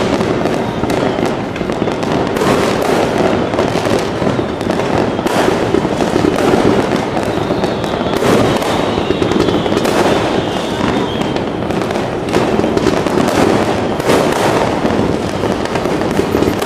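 New Year's fireworks going off in a dense, continuous barrage of overlapping bangs and crackles, with a faint high whistle about halfway through.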